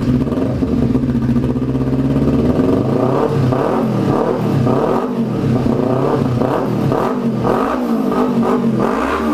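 Kawasaki Ninja 300's parallel-twin engine running through an aftermarket Jeskap full 2-into-1 exhaust with GP tip and dB killer fitted. It idles steadily at first, then from about three seconds in it is revved in a series of short throttle blips, its pitch rising and falling again and again.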